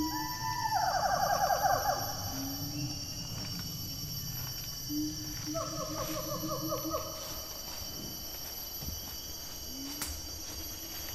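Sumatran rhinoceros giving two pitched, warbling calls: one about two seconds long at the start, and a lower, shorter one about five seconds in. A steady high insect drone runs underneath.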